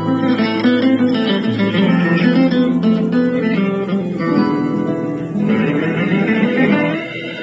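Background music: acoustic guitar playing a plucked melody with strummed chords.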